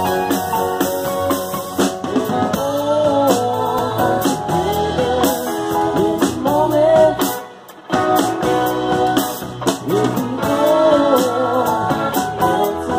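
A live band plays an Americana soul song, with guitars, bass and drum kit under lead vocals. The band drops out for a moment about seven and a half seconds in, then comes back in.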